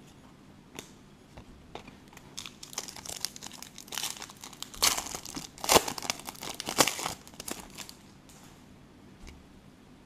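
Foil wrapper of a 2015 Select Soccer trading-card pack being torn open and crinkled by hand, a run of sharp crackles starting about two seconds in, loudest in the middle and dying away a couple of seconds before the end.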